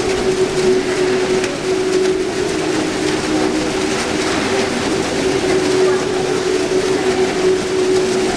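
Steady machine hum: a constant low drone over an even hiss, unchanging throughout, with no distinct knocks or splashes standing out.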